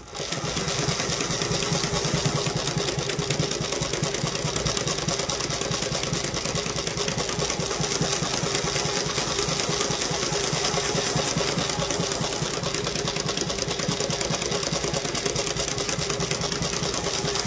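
A Cornely L chainstitch embroidery machine sewing at a steady speed, a fast, even mechanical rhythm from the needle and the spinning wrapping-thread spool as it couches thick furry yarn. It starts right at the beginning and keeps an even pace throughout.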